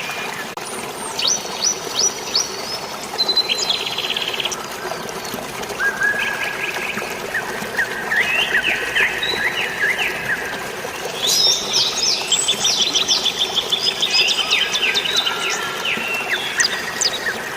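Several birds chirping and trilling, with quick runs of repeated notes, busiest in the second half. Underneath is a steady hiss of drizzling rain and flowing water.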